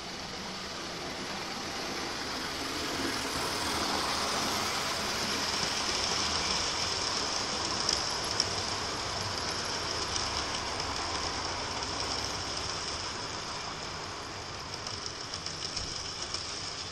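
OO gauge model train running past: the locomotive's electric motor whining and the wheels rumbling along the track, swelling as the coaches pass close by and fading as the train moves away, with a few sharp clicks from the track.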